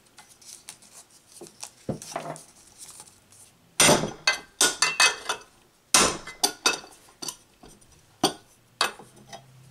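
Hammer striking a flat-bladed tool wedged into the seam between an electric motor's end bell and its frame, driving the end cover off the housing: a string of sharp, irregular metallic taps with a short ring, beginning about four seconds in after a few quieter clicks of handling.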